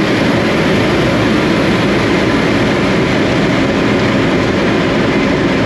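Steady wind rush and rumble in the open cockpit of a hand-built 6-litre V12 lakester moving at speed, with the engine's note low and faint under the noise.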